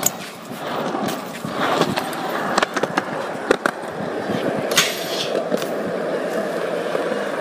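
BMX bike being ridden, its tyres rolling steadily on a hard surface, with several sharp knocks and clacks along the way.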